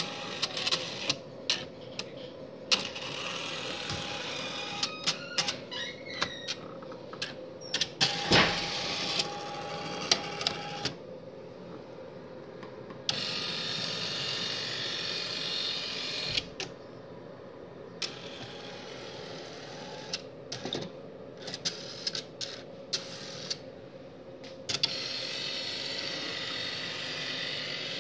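StorageTek SL48 tape library robot (picker) running through a test cycle, moving and handling tape cartridges: stretches of motor whirring broken by many sharp clicks and clacks, over a steady hum.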